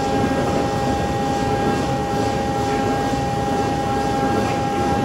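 Stu Blattner raise-bore drill rig running: a steady, loud mechanical din with a constant high-pitched whine over it.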